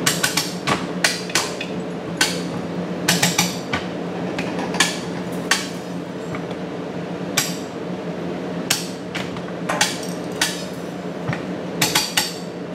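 Makeshift come-along being worked under load to drag a heavy CNC mill over steel rods: sharp metallic ratchet clicks and chain clanks, irregularly spaced and often in quick runs of two to four.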